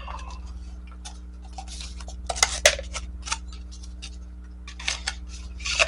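Clicks and taps of small hard objects being handled on a workbench, a few sharper knocks among them, over a steady low hum.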